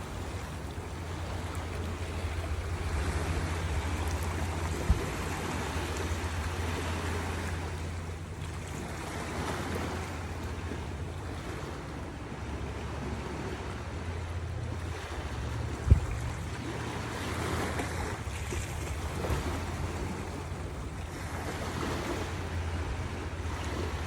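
Sea waves breaking and washing in, the surf noise swelling and ebbing every few seconds, over a steady low rumble of wind on the microphone. Two brief thumps stand out, a small one about a fifth of the way through and a louder one about two-thirds through.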